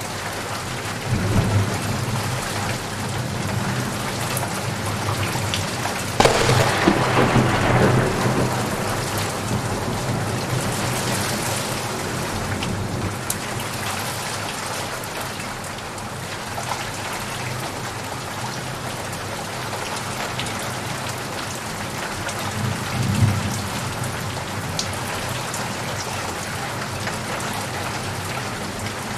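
Steady rain with thunder. There is a low rumble about a second in, then a loud thunderclap about six seconds in that rolls on for a couple of seconds, and another low rumble about three-quarters of the way through.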